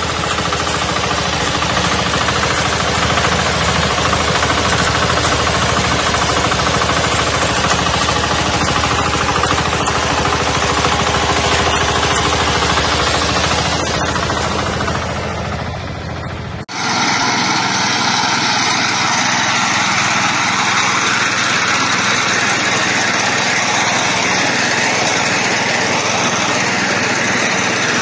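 Walk-behind reaper's small engine running steadily under load while cutting grass. About 17 s in the sound cuts abruptly to another walk-behind reaper running as it cuts rice, thinner with less bass.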